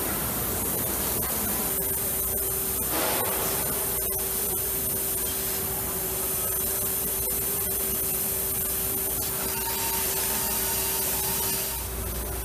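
LVD automated laser-cutting machine at work: a steady hiss with a steady mid-pitched hum through most of it. Near the end the sound shifts to a lower, duller noise.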